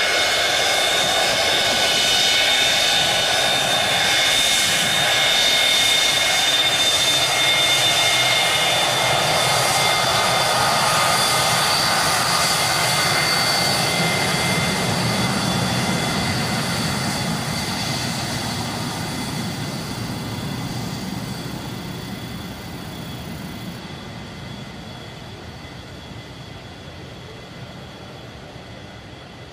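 Boeing 727-200's three Pratt & Whitney JT8D turbofans at takeoff power: a loud high whine over a rumble as the jet begins its takeoff roll. About halfway through the whine fades and the whole sound dies away steadily as the jet rolls off down the runway.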